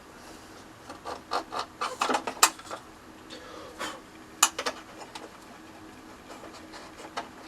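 Small pieces of wood and tools being handled and set in place on a workbench: a quick run of light clicks and taps, then a couple of sharp single knocks, over a faint steady hum.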